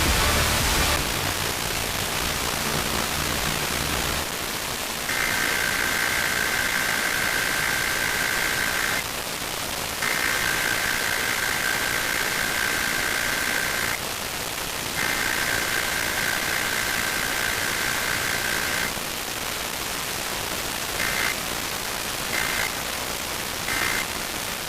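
Emergency Alert System SAME data header: three long warbling two-tone digital bursts about a second apart, then three short bursts near the end that match the end-of-message codes, all over steady static hiss from a weak radio signal.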